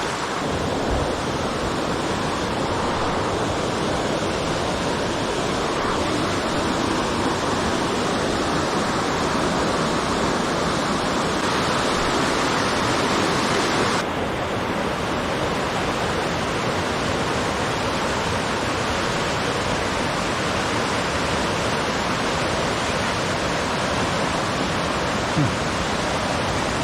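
Steady rush of flowing water, a waterfall or fast stream. Its tone changes abruptly about halfway through.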